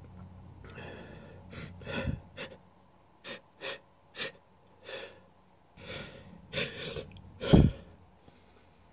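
A person caught in a sneezing fit: about a dozen short, sharp gasping breaths at uneven intervals as a sneeze builds, then one loud sneeze about seven and a half seconds in.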